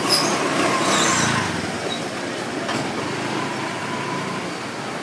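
A motor vehicle passing close by, its engine loudest in the first second and a half, over steady street-market background noise.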